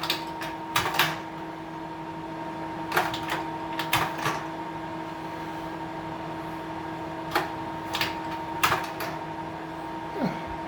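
Hanimex La Ronde 500S slide projector running with a steady fan hum, while its slide-change mechanism clicks and clunks several times, often in quick pairs a few seconds apart.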